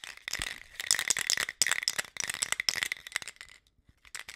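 Aerosol spray-paint can being shaken, its mixing ball rattling in quick bursts. There is a brief pause near the end, then it starts again.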